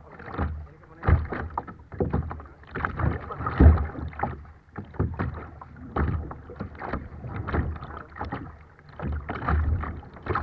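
Choppy water slapping and splashing against a kayak close to the microphone, in irregular gushes several times a second.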